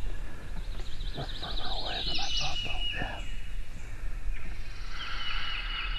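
Wild turkey gobbler gobbling once, a quick rattling call about two seconds long, with songbirds trilling over it.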